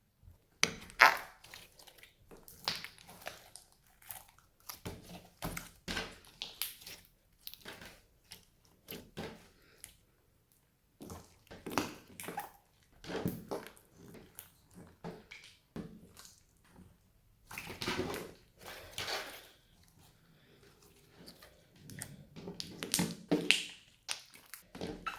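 Slime being squished and kneaded by hand: irregular squelches and clicks coming in short bunches with brief pauses.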